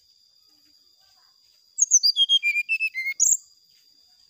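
Brown-chested jungle flycatcher singing one quick phrase, about two seconds in: a run of about a dozen clear notes stepping down in pitch, ending on a sharp rising note. A steady high thin tone runs underneath.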